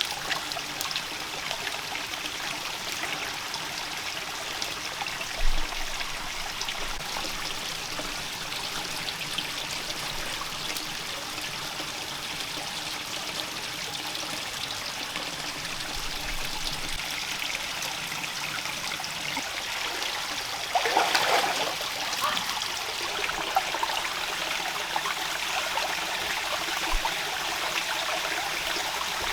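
Steady rain with running, trickling water, a continuous rushing hiss. About two-thirds of the way through comes a louder burst of about a second.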